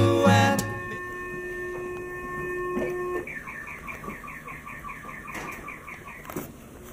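Fire station alerting tones: a steady tone of several pitches held for a couple of seconds, then a fast warbling tone of about six or seven pulses a second that stops shortly before the end. It is the dispatch alert that sends the crew out on a call.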